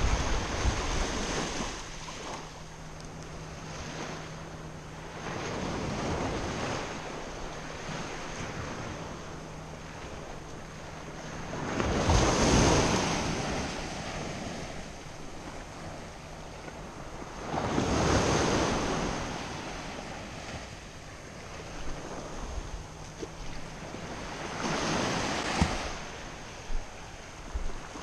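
Small surf breaking and washing up a sandy beach, the wash swelling about every six seconds, with wind buffeting the microphone.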